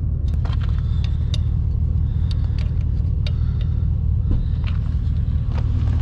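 Side-by-side UTV engine idling steadily, with scattered light clicks of a wrench being fitted to a brake bleeder screw.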